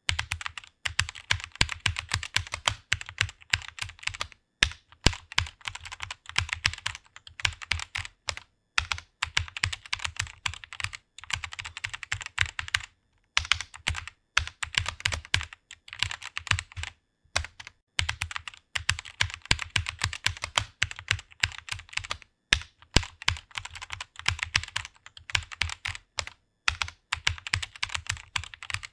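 Computer keyboard being typed on quickly and continuously, a rapid stream of key clicks broken by short pauses every few seconds.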